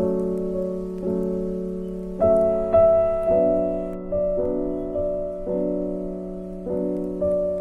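Background piano music: slow, soft chords struck every half second to a second, each left to ring and fade.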